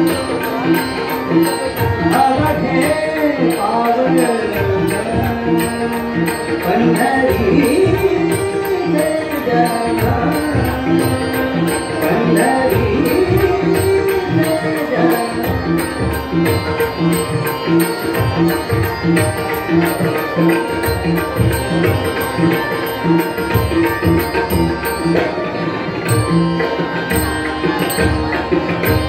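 Marathi abhang, a devotional song, performed live: a male singer with harmonium and a tabla keeping a steady rhythmic beat.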